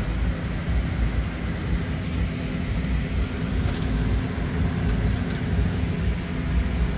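Steady low rumble and constant hum of running machinery, with a few faint ticks.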